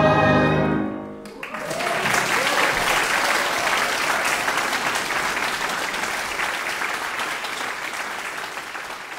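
A choir's final held chord dies away about a second in, then the audience breaks into applause that goes on, slowly fading.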